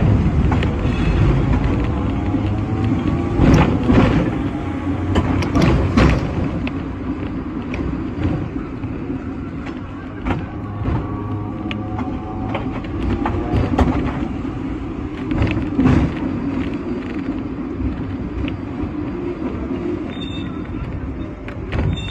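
Hong Kong sixth-generation teak-bodied double-decker tram running along street rails: a steady rumble with a series of sharp knocks from the steel wheels over rail joints and points. A faint whine rises in pitch twice as the tram picks up speed.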